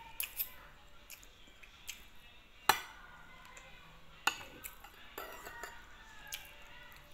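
Metal spoon and fork clinking and scraping against ceramic plates while eating, a string of separate sharp clinks with the loudest a little under three seconds in.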